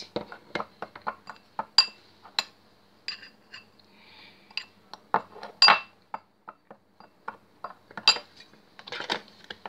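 Metal spoon clinking against a ceramic bowl while scooping and stirring spice powder: many quick, irregular clinks, some ringing briefly.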